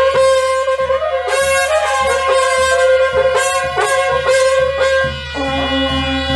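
Music: a melody on a wind or brass instrument over a steady held drone, with drum strokes. A lower held note comes in about five seconds in.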